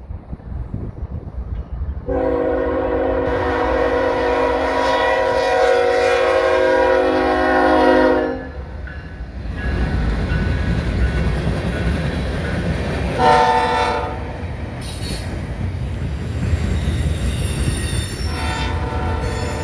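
Diesel freight locomotives sounding their multi-note air horn: one long blast from about two to eight seconds in, a short blast in the middle and another starting near the end. Under the horn, the engines and the rolling wheels of the passing train rumble steadily.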